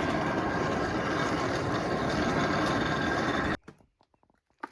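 Old forge's blower running steadily with a faint whine, stopping abruptly about three and a half seconds in, after which there is near quiet with a few faint clicks.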